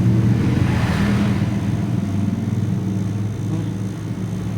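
Steady low engine hum with a pitched drone, from an engine running nearby.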